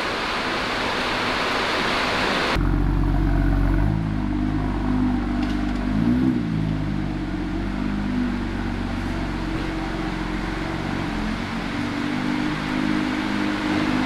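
A steady rushing hiss for about the first two and a half seconds, then a BMW M2's turbocharged straight-six running at low revs as the car creeps off, with one short rev blip about six seconds in.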